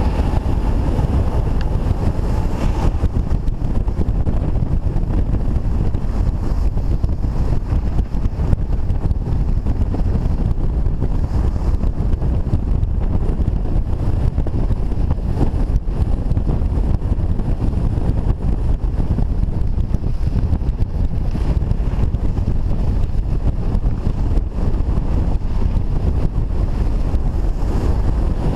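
Steady wind rumble on a GoPro's microphone while skiing down a groomed run at speed.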